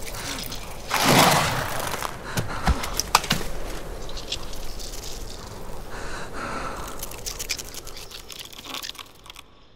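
Sound effects from a snowy drama scene: a rushing noise swell about a second in, then scattered crunching and crackling clicks, fading low near the end.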